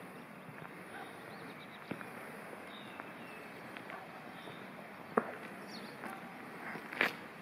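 Outdoor ambience: a steady background hiss with faint bird chirps and a few sharp footstep-like clicks, the loudest about five seconds in and just before the end.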